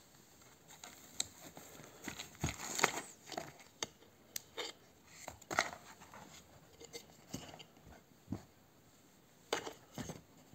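Small objects and packaging being handled by hand: a scattered run of clicks, taps and rustles, busiest a few seconds in and again near the end.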